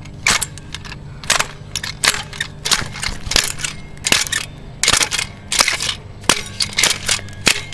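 A kick scooter's wheel slammed down again and again onto a camera battery on asphalt: a rapid, irregular series of sharp cracks, about two a second, as the battery casing is crushed flat.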